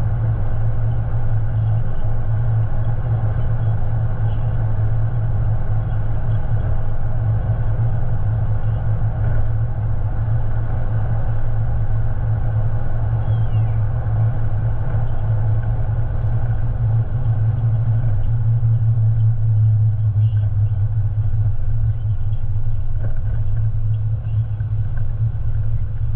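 Steady low drone of a vehicle driving at highway speed, heard from inside the cabin: engine and tyre noise on the road.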